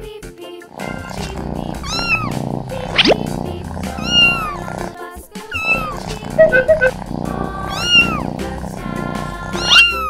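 High-pitched kitten meows, about five of them, each rising then falling in pitch, over background music.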